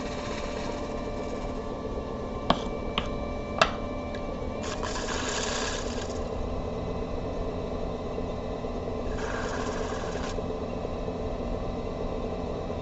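Electric pottery wheel running steadily, a constant motor hum as the wheel head spins. A few sharp clicks come about two and a half to three and a half seconds in, and two brief hissing scrapes sound around five seconds and around nine to ten seconds in as the clay is worked on the spinning wheel.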